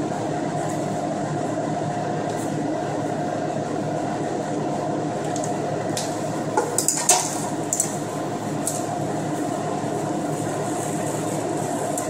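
A spatula scraping thick frozen ice cream out of a stainless steel mixer bowl into a plastic cup, with a cluster of sharp scrapes and knocks about seven seconds in. A steady machine hum runs underneath throughout.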